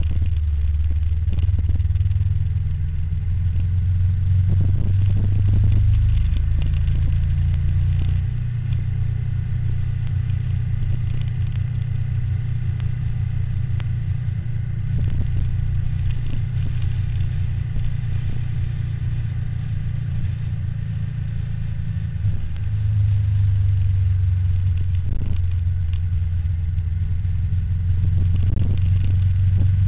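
Steady low rumble of road traffic and riding noise, with vehicles on the road. The low drone shifts about 8 seconds in and again about 23 seconds in.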